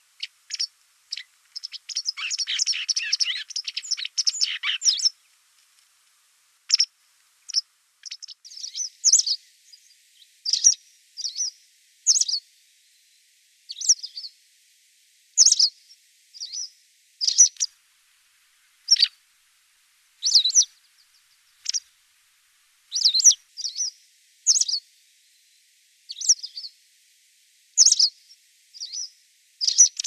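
White wagtail calling: a rapid twittering run early on, then short, sharp high chirps repeated about once a second, sometimes in pairs.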